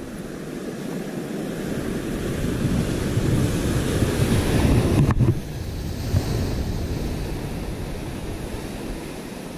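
Sea surf breaking over coastal rocks, building to its loudest surge about halfway through and then falling away, with wind buffeting the microphone.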